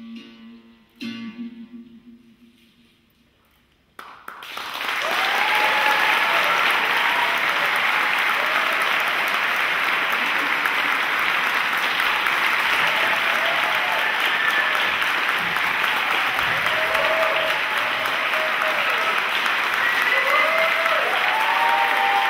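The band's last note rings and dies away, then near silence. About four seconds in, an audience breaks into loud applause that keeps going, with cheering shouts and whistles over it.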